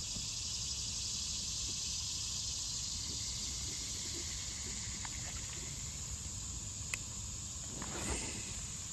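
Insects calling in a steady, high-pitched, even drone, with a single faint click about seven seconds in.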